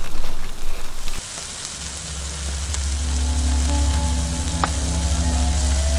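Glowing asado embers crackling and hissing, with an occasional sharp tick. About two seconds in, a low, steady music drone fades in under it and holds.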